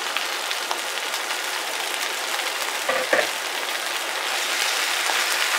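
Lacinato kale sizzling as it hits hot olive oil in a pan with shallots, garlic and Fresno peppers: a steady frying hiss with small crackles. A brief louder sound about three seconds in.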